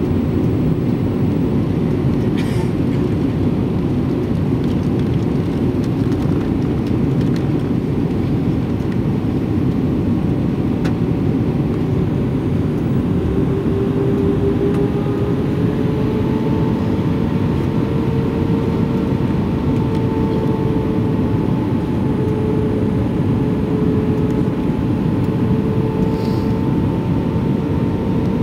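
Airliner cabin noise on the descent for landing: a steady, loud rush of jet engines and airflow. About halfway through, a steady hum joins it and holds, wavering slightly in pitch.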